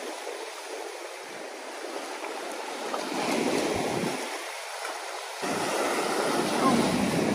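Ocean swell surging and washing over a rock platform. The wash builds about three seconds in, eases, then surges in again suddenly about five and a half seconds in.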